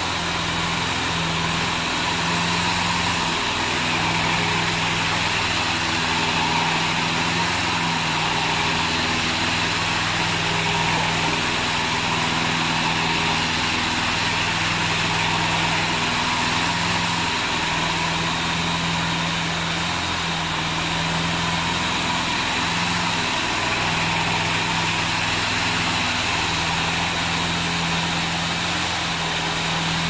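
Engine of a Black Shark 800 remote-controlled tracked slope mower running steadily at an even level while the machine drives and turns.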